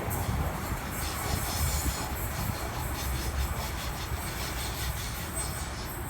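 Electric intercity train running on the track, a steady rumble of wheels on rails that slowly fades.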